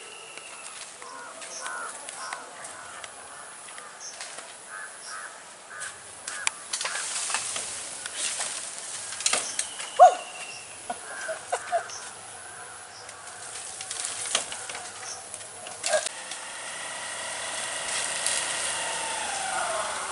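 Birds chirping and calling among the trees, with scattered clicks and rustles and one louder short falling call about halfway through. In the last few seconds a motor scooter's engine runs with a steady hum.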